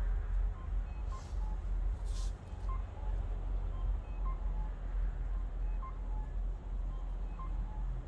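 Wind buffeting the microphone, a steady deep rumble, with faint short high beeping tones repeating every half second or so at a few different pitches. Two brief rustles come about one and two seconds in.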